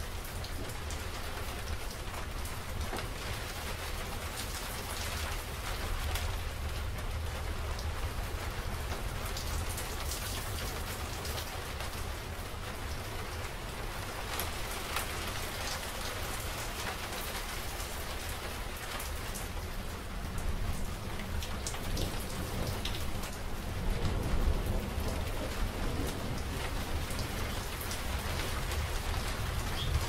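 Steady heavy rain with fine drop patter. A low rumble of thunder swells in about two-thirds of the way through and carries on to the end.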